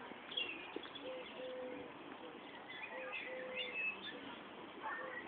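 Pigeon cooing, a low phrase repeated about every two seconds, with smaller birds chirping higher over it.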